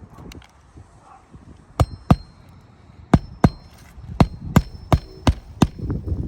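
Hammer driving roofing nails through a roof shingle: about nine sharp strikes, two pairs first, then a steady run of about three a second, some with a faint metallic ring.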